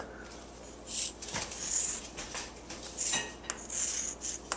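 Chalk writing on a chalkboard: several short scratchy strokes, with a few sharp taps of the chalk on the board between them.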